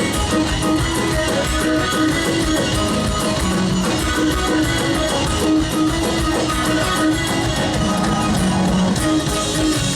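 Heavy metal band playing live: electric guitars, bass guitar and drum kit.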